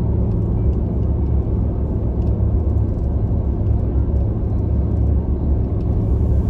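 Truck driving down the road, heard from inside the cab: a steady low rumble of engine and road noise.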